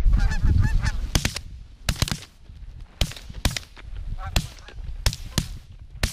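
Canada geese honking, then a volley of shotgun shots, about ten sharp reports spread over the last five seconds, with more honking between them.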